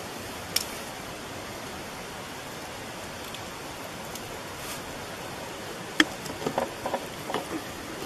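Steady hiss with a campfire crackling: a sharp crack about six seconds in, then several small pops in quick succession.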